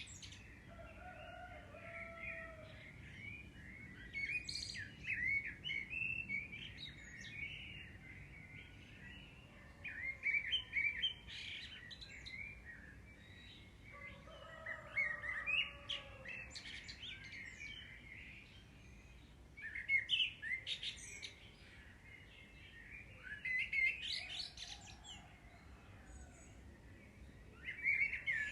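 Small birds chirping and twittering in short bursts that come back every few seconds, over a faint steady hiss.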